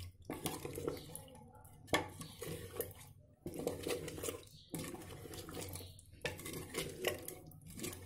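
Wooden spoon stirring chicken and cream gravy in an earthenware handi, knocking and scraping against the clay sides in irregular strokes.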